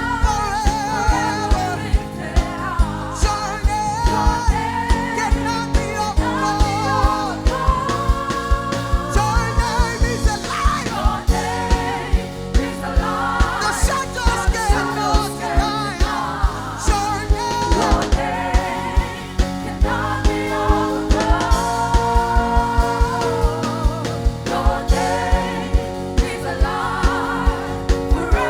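Gospel worship music: a band with a steady beat and singing voices.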